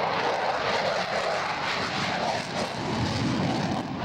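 Jet engine noise from an F-16 flying a display: a loud, steady rushing sound that dips briefly about two and a half seconds in.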